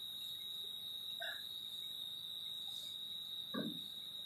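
Crickets chirping as one steady, high, unbroken tone, with a couple of faint, brief murmurs of voices.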